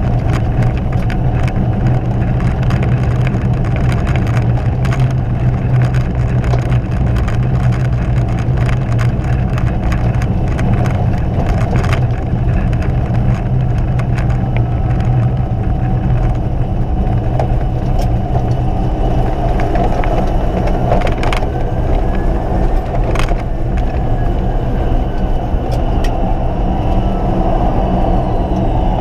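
Air Tractor 802's turboprop engine and spinning propeller running steadily at low power, heard from inside the cockpit as the plane rolls along a dirt farm road. The steady drone comes with a stream of small clicks and rattles.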